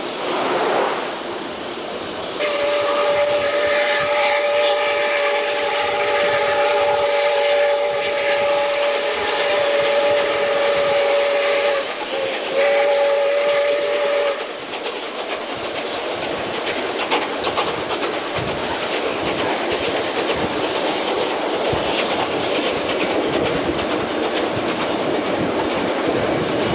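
Ex-South Australian Railways steam locomotive whistle blowing one long blast of about ten seconds, starting a couple of seconds in, broken briefly and sounded again for another second or two. After it, the steady running noise of the steam-hauled train heard from a carriage, with wheels clacking over the rail joints.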